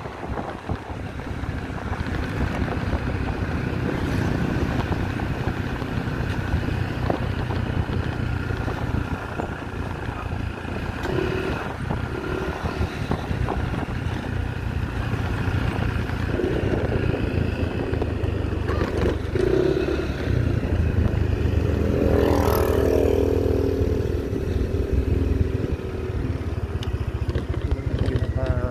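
Motorcycle engine running steadily at road speed, with wind and road noise on the microphone. A brief pitched sound rises and fades about three-quarters of the way through.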